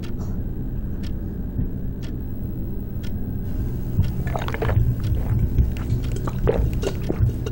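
A man gulping water from a glass in a run of wet swallows over a steady low hum, the swallows starting about halfway through.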